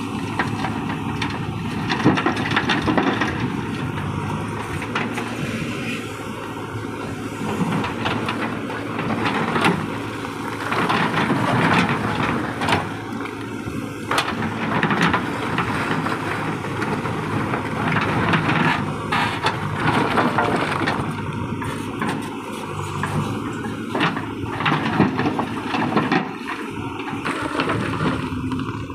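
The JCB 3DX backhoe loader's diesel engine runs steadily under hydraulic load while its rear bucket digs and scrapes through a heap of broken stone. Rocks crunch and clatter irregularly over the engine noise.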